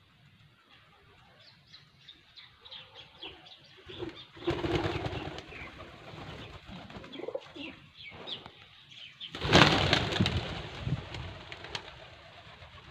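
A flock of birds chirping, with two loud rushes of wing flapping, about four seconds in and again about nine and a half seconds in, as the birds take off together.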